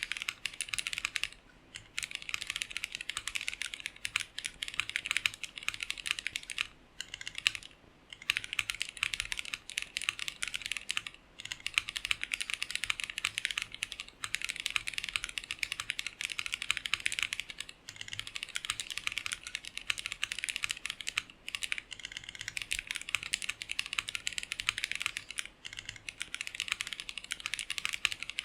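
Custom 60% gasket-mount mechanical keyboard, with a polycarbonate plate in an acrylic sandwich case, being typed on steadily: rapid keystrokes broken by a few short pauses, the longest about a quarter of the way in.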